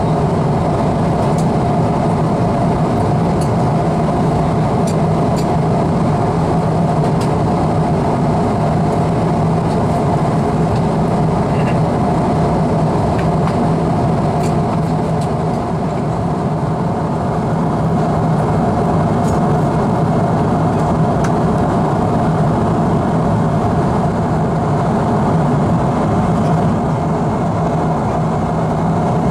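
Steady cabin noise of a Boeing 777-300ER in cruise: an even roar of airflow and GE90 engine drone heard from inside the cabin, with a steady low hum and a steady higher hum under it.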